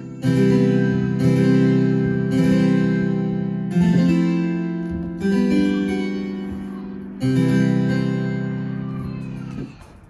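Roland FP-90X digital piano's "Harpsi 8'+4'" harpsichord tone: six chords played slowly one after another, each struck sharply and left to ring and fade. The playing stops shortly before the end.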